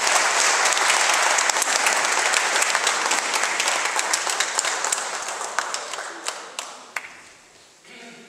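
Audience applauding, then thinning out after about five seconds to a few last scattered claps around six to seven seconds in.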